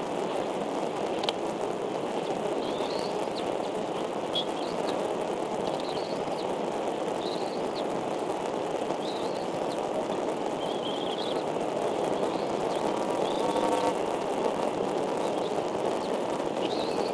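Short high chirps repeating about once a second, typical of bald eaglet chicks peeping while being fed, over a steady rushing background noise. A faint drone rises briefly about three-quarters of the way through.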